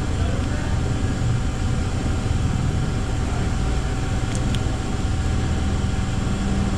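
A steady low mechanical rumble with a faint steady hum, and two faint ticks about four and a half seconds in.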